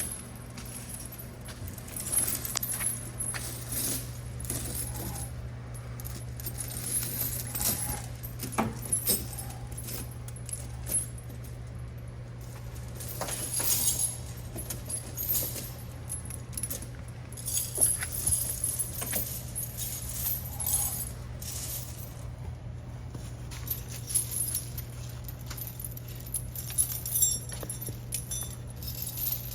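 Steel tire chains being handled, their links jingling and clinking in irregular bursts over a steady low hum.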